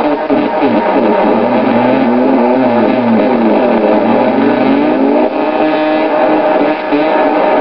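Atari Punk Console, a 555-timer square-wave synth, droning through a circuit-bent Danelectro Fab Echo delay pedal. Its pitch slides up and down while the echoes of the sweeps overlap and cross over a steady held drone.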